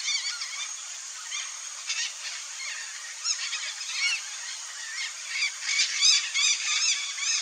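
Red-bellied macaw calling: a run of short, shrill screeches, coming thicker and faster near the end.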